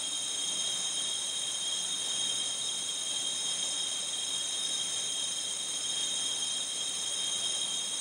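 Waterfall roar reshaped with an equalizer and tremolo into a synthetic imitation of autumn insect song: an even rushing noise with several high, steady ringing bands on top.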